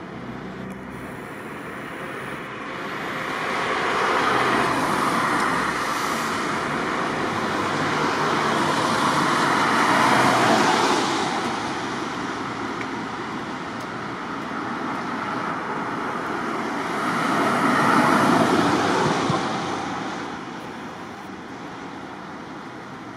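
Road traffic passing on a wet street: three swells of tyre and engine noise, each rising and fading over several seconds.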